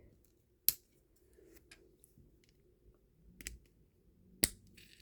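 Small plastic Lego pieces being handled and clicked into place: a sharp click under a second in, a few softer clicks past the middle, and another sharp click near the end.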